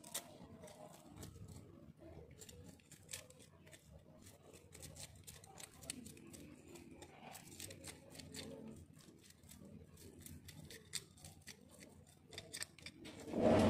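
A blade working through a fish: a long, irregular run of crisp snips and scraping clicks, with a louder burst of handling noise near the end.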